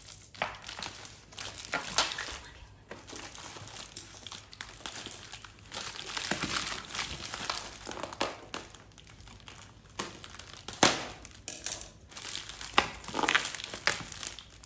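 Plastic bubble wrap crinkling and rustling as hands pull and fold it away from a boxed laptop, with irregular crackles, two of them sharper, about two seconds in and near eleven seconds.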